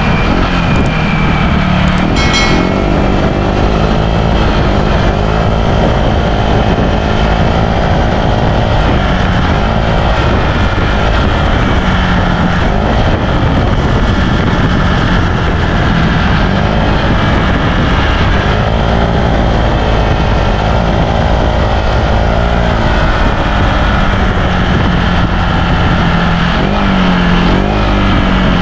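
Honda Click scooter's single-cylinder engine running through a Sun Racing Silent Killer aftermarket exhaust, a steady, loud drone whose pitch wavers slightly up and down.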